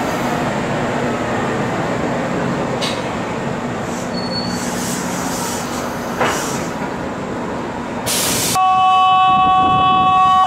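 Kintetsu electric train running through the station with a steady rumble. About eight seconds in there is a short loud hiss, then a loud, steady horn blast for about two seconds.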